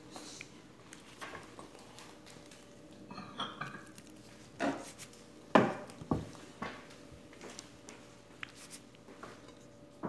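Kitchenware being handled: a few sharp clinks and knocks of a dish or utensil against a glass bowl, the loudest just past halfway and two or three more close after it, with soft handling noise while diced mango is put into the bowl.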